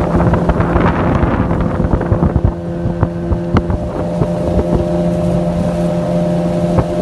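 Outboard motor of a small Craig Cat boat running steadily at speed, with wind on the microphone and sharp slaps of the hull on the water.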